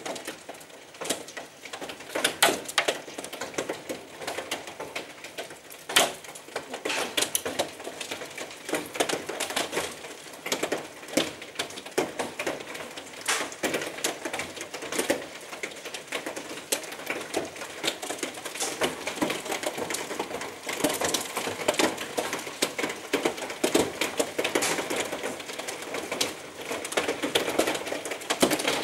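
Hailstones pelting a corrugated fibre-cement roof, a dense irregular clatter of sharp ticks and knocks that grows heavier toward the end.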